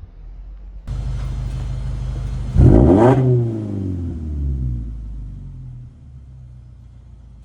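Car engine idling, revved once sharply about two and a half seconds in, its pitch climbing fast and then falling slowly back to idle.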